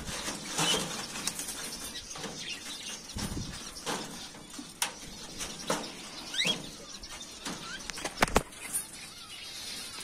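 Thin homemade sheet-metal cage tray being pushed by hand into its slot under a wire cage: scattered scrapes and a handful of light knocks of metal against the wire as it goes in. A short bird chirp comes in near the middle.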